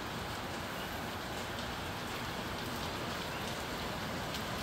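Heavy tropical-storm rain pouring steadily.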